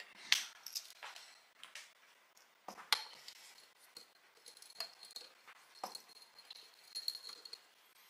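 A few light clinks and taps of a small glass catcher jar being handled and fitted to the bottom of a hand coffee grinder, one every second or so.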